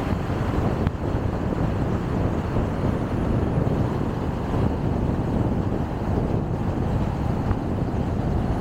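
Car driving at road speed: a steady low rumble of tyre and road noise.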